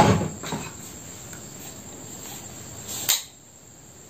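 Crickets chirring in a steady high-pitched trill, with a loud noise right at the start that fades within half a second. A sharp click comes about three seconds in, and after it the background hiss drops.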